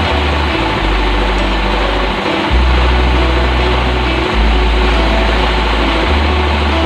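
Steady motor noise from sawmill machinery with background music over it; the music's low bass notes change every second or two.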